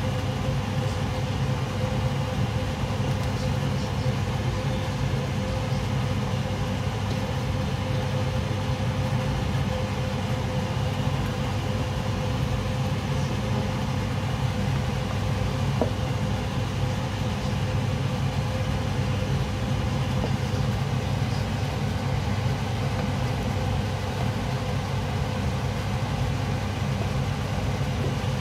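A steady low drone with a faint steady whine, while a pot of shrimp sinigang boils hard on the stove. There is one light knock about halfway through.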